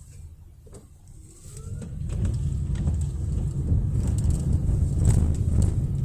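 Kintetsu Osaka Line train passing the level crossing: a low rumble that builds from about a second and a half in and stays loud, with a few sharp clacks in the second half.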